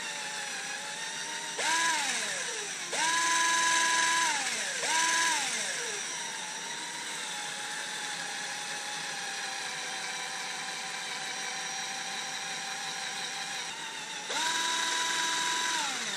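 Cordless 20 V drill spinning a wire brush against a piston top to clean it: a steady motor whine at part speed, with four bursts to full speed, each winding down in a falling whine as the trigger eases.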